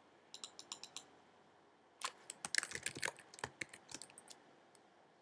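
Typing on a computer keyboard: a short run of about six keystrokes, a pause of about a second, then a quicker flurry of keystrokes lasting about two seconds that tails off near the end.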